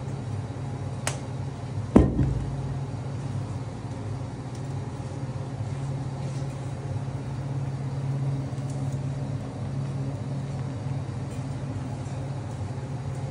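Steady low machine hum, with a single sharp knock about two seconds in.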